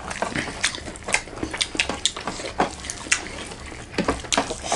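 Close-miked chewing and lip smacking from someone eating a meal of rice and curry: a run of irregular, wet mouth clicks.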